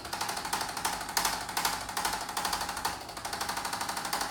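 Handheld percussive chiropractic adjusting instrument delivering a rapid, steady train of taps over the shoulder girdle and sternum.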